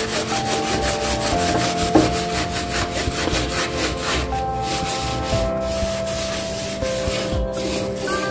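Steel scrubber scouring the grimy steel top of a gas stove in quick back-and-forth strokes. Soft background music with long held notes plays underneath.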